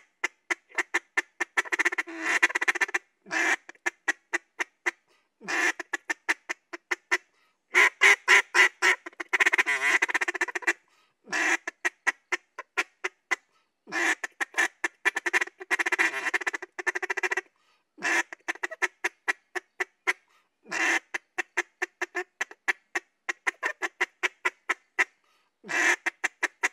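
Duck call blown in a feed call: runs of rapid clucks ("tukka-tukka, tikka-tikka") mixed with single cluck notes and quacks, in groups broken by short pauses.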